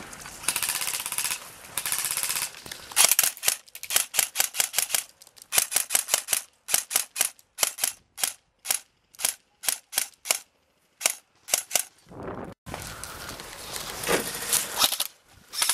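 Airsoft rifles firing: a few rapid full-auto bursts early on, then a run of single shots about three a second, and more bursts near the end.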